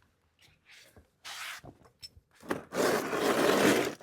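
Rubbing and scraping of something being handled: a short scrape about a second in, then a louder, longer rasping rub for over a second near the end.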